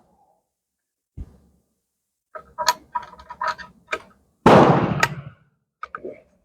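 Sharp metallic clicks of a Sharps .45-70 rifle's action being worked, then a single loud shot about halfway through, followed by two small clicks.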